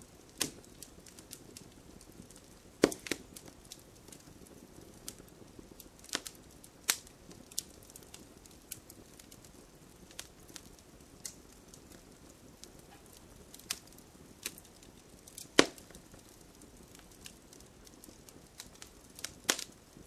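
Fireplace fire crackling: irregular sharp pops and snaps over a faint hiss, with two louder pops at about three seconds and fifteen seconds in.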